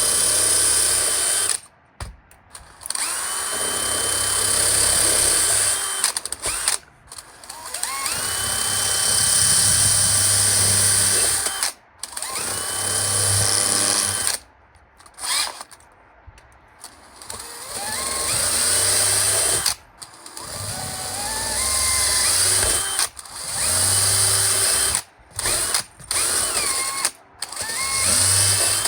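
Electric drill boring a series of small holes through cement board. The motor starts and stops about ten times, and its whine rises each time it spins back up.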